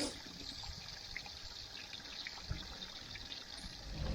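Water trickling steadily as a horse's water trough or bucket is filled with fresh water.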